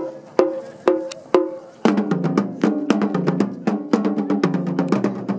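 Japanese taiko drum ensemble: four single strikes about half a second apart, each ringing briefly, then about two seconds in the group breaks into fast, dense drumming on the barrel drums.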